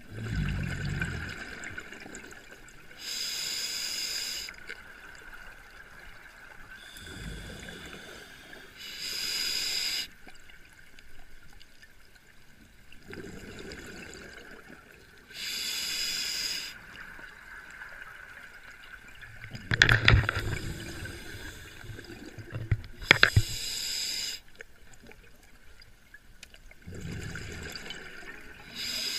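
Scuba diver breathing through a regulator underwater: each breath draws in with a low rush and goes out as a bubbling hiss of exhaled air, repeating about every six seconds. A few sharp clicks come about two-thirds of the way through.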